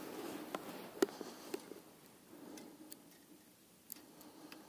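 A few faint, scattered clicks and light handling noises from a spinning rod being rigged with a soft-plastic lure.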